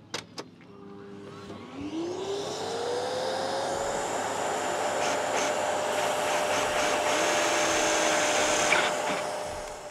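Vacuum cleaner switched on about a second in, its motor winding up in pitch over a couple of seconds to a steady whine, running, then dying away near the end. A cordless drill boring through the boat's deck runs under it.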